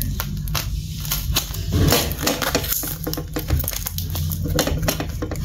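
Box cutter cutting and prying at a sealed cardboard box: a run of irregular crackling, scraping and tearing of the cardboard as the top is worked open.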